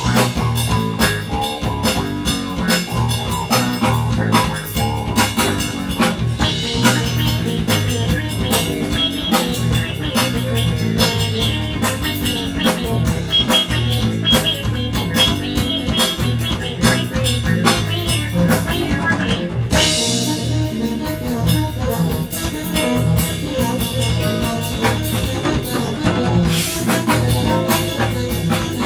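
Live jazz-rock band playing: an electric bassoon run through effects, with keyboards, guitar and a busy drum kit. Cymbal crashes ring out about twenty and twenty-seven seconds in.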